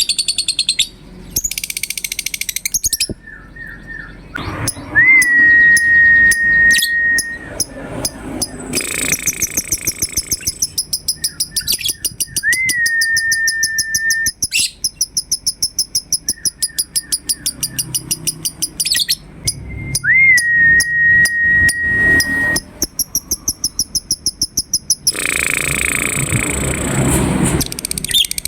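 Lovebirds chattering in long, very fast trills, the 'ngekek' call prized in Indonesian lovebird song contests. Three times, a long steady whistled note with a quick rise at its start cuts across the chatter.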